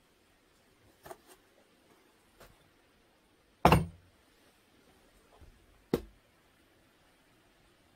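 A steel ingot mold knocked against a firebrick to free a freshly cast aluminium ingot: a few light taps, then one loud clunk as the ingot drops out, and a second sharp knock about two seconds later.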